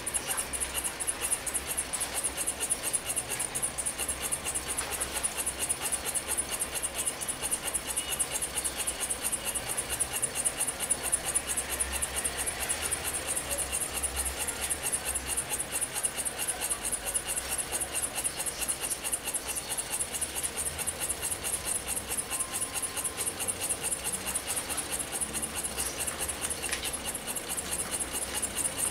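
Small model Stirling engine with a brass flywheel and glass cylinder running steadily, its mechanism making a rapid, even ticking.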